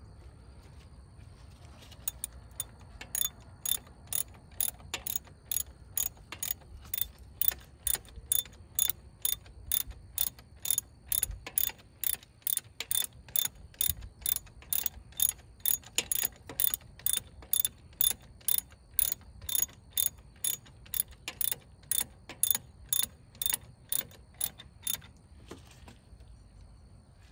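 Hand ratchet wrench clicking as a bolt is tightened: a steady run of sharp pawl clicks, about two a second, starting about two seconds in and stopping near the end.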